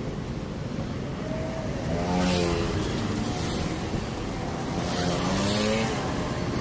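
Road traffic: motor vehicles passing, with engine noise swelling about two seconds in and again about five seconds in.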